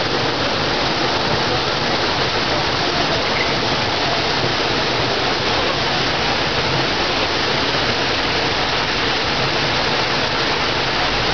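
Steady, unbroken rush of falling water, like a cascade running into a pond.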